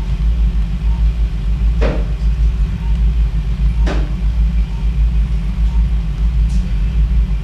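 Steady low rumble of operating-room equipment, with two brief clicks about two seconds apart.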